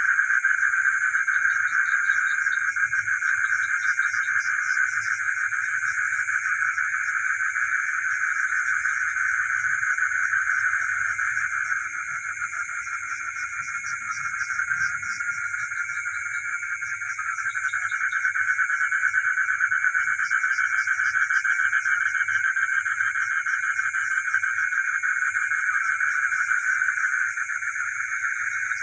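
Frogs calling at night in a dense, unbroken chorus, with a steady high-pitched trill running above it.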